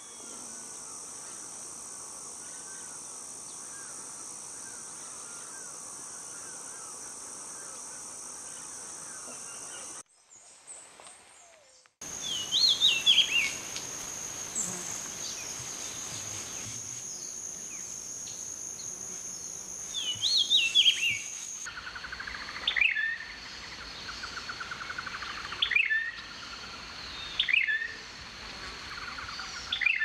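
Songs and calls of several songbird species edited one after another. First comes a steady chatter of chirps over a high insect-like drone. After a brief near-silent break come loud, clear whistled song phrases repeated every few seconds, still over a steady high drone.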